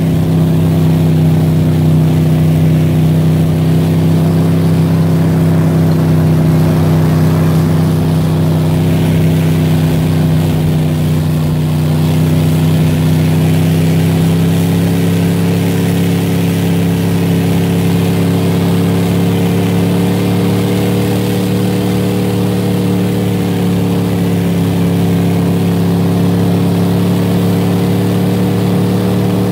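Snowcat engine running steadily as the machine climbs a snowy track, a loud even drone whose pitch creeps up a little about halfway through.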